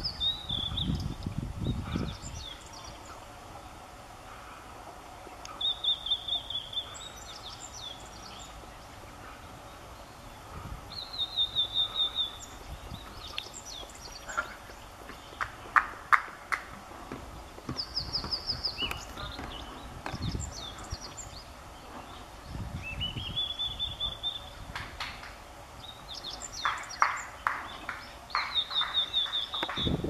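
Blue-and-white flycatcher singing: short, varied, high whistled phrases every few seconds, some slurring downward and one rising, with bursts of quick ticking notes in the middle and near the end.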